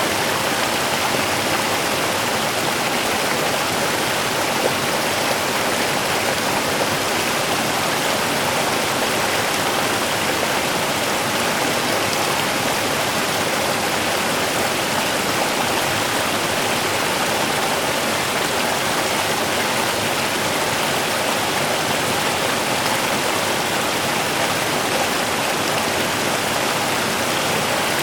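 Small river running steadily over rocks: an even rushing of flowing water.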